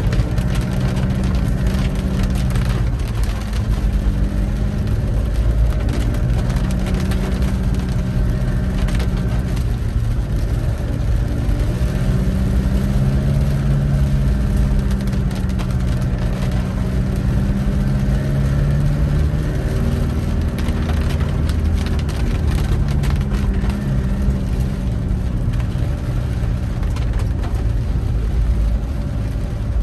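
Car engine and road noise while driving, the engine's pitch rising and falling several times as the car speeds up and slows down.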